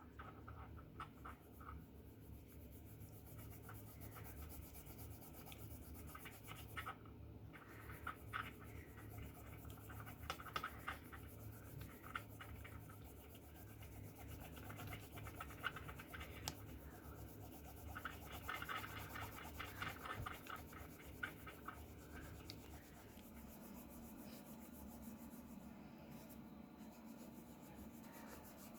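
Faint scratching and rubbing strokes from hand work on small parts, coming in short runs, with a few light clicks.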